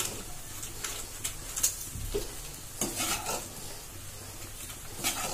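Spatula stirring and turning fried rice in a pan, a few irregular scrapes against the pan over a faint sizzle from the low flame.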